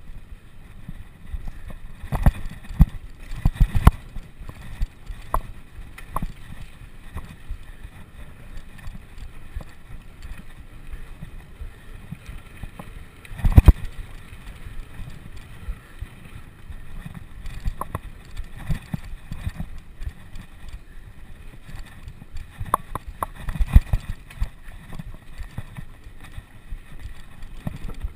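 Bicycle rattling and knocking over rough ground, with irregular thumps over a steady rumble; the hardest jolts come a couple of seconds in, about halfway, and again near the end.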